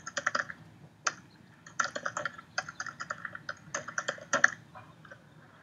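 Typing on a laptop keyboard: quiet key clicks in short runs with pauses between them, as a short list of names is entered.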